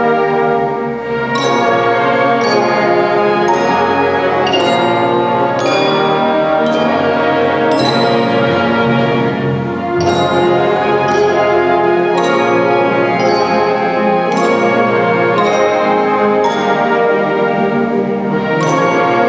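Concert wind band playing a full, sustained passage of brass and woodwind chords. Bright struck percussion notes ring out about once a second.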